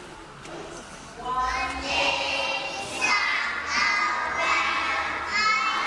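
A group of young children singing together, starting about a second and a half in, in phrases of about a second each.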